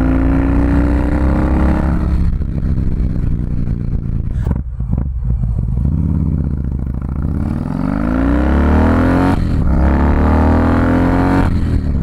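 Harley-Davidson CVO Softail Convertible's 110ci Twin Cam V-twin pulling under acceleration on the road, its note rising, then dropping away about two seconds in. It dips around the middle, climbs again, and drops once more near the end.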